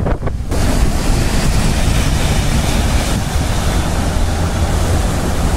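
Storm surf breaking against a rocky shore under strong wind that buffets the microphone, a steady heavy rushing with deep rumble. Briefly at the start, street noise on wet pavement before it.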